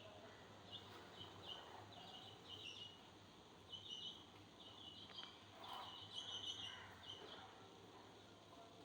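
Sparrows chirping faintly: quick runs of short, high chirps that come in bunches again and again, over a low background hum.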